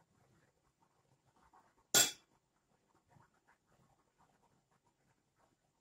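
Soft, faint rustling of buttered kadayıf pastry strands handled and pressed into a small cup, with one sharp clink of a metal spoon set down against a bowl about two seconds in.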